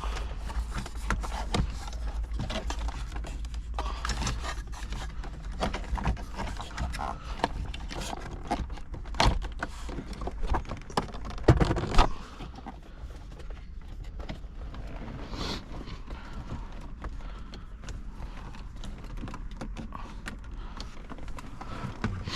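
Handling noises while fitting an aftermarket head unit and its wiring into a car dash: irregular clicks, knocks and scraping of plastic and cables, busiest in the first half, with the loudest knocks about eleven to twelve seconds in.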